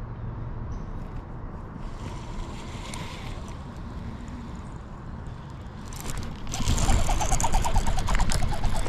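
Low steady rumble of wind and water, then about six and a half seconds in a louder stretch with a fast, even ticking: a baitcasting reel being cranked to bring in a small fish.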